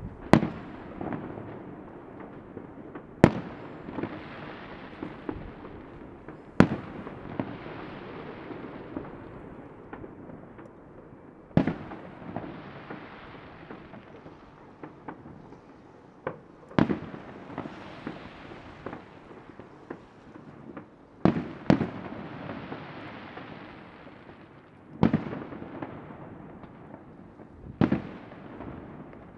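Fireworks bursting at a distance: about nine sharp bangs, a few seconds apart and two in quick succession about two-thirds of the way in, over continuous crackling and rumbling from many other fireworks further off.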